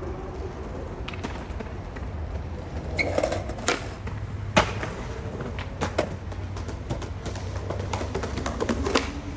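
Skateboard wheels rolling on smooth concrete, a steady low rumble, broken by several sharp clacks of the board. The loudest clack comes about four and a half seconds in.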